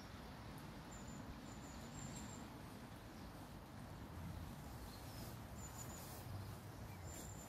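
Quiet outdoor ambience: a steady low rumble with a few short, high-pitched bird chirps scattered through it.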